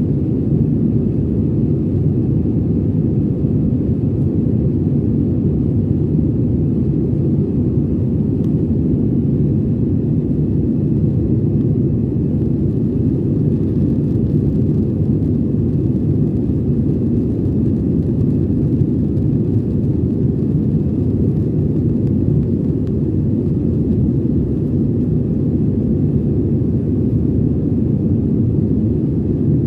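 Steady low rumble of a passenger airliner's cabin in flight, the engine and airflow noise heard from inside the cabin.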